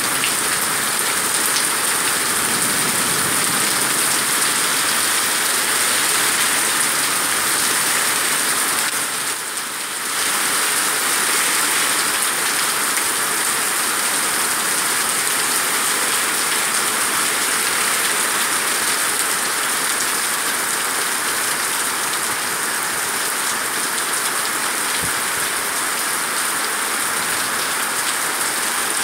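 Rain falling steadily on a paved street and stone sidewalk, a dense even hiss that dips briefly about nine seconds in.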